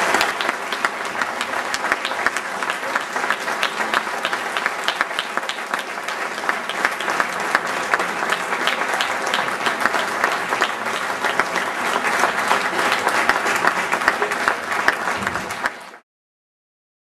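Audience applauding steadily after a speech, a dense patter of many hands. The applause cuts off suddenly near the end.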